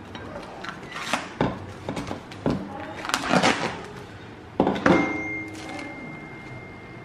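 Plastic cling wrap crinkling and rustling as it is handled and folded around a sandwich, with light knocks on the countertop. About two-thirds through, a louder knock is followed by a clear ringing tone that fades out over about two seconds.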